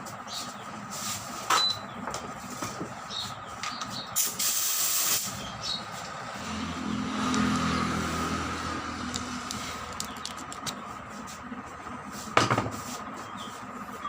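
A short burst of hissing compressed air about four seconds in, among small workshop clicks and taps. A low engine rumble rises and fades in the middle, and a single sharp knock comes near the end.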